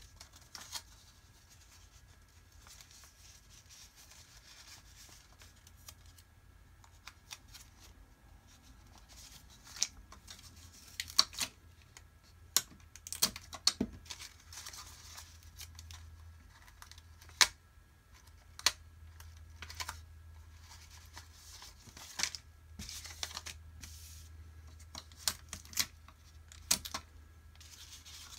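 Paper being folded and creased by hand on a wooden tabletop: scattered crisp crackles and taps as the sheet is handled and pressed flat, over a faint steady low hum.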